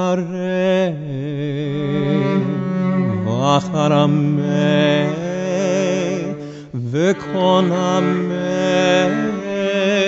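Cantor singing a drawn-out, melismatic line of Hebrew liturgical chant with strong vibrato, over a held low accompaniment. The voice dips briefly twice and then sweeps into new phrases.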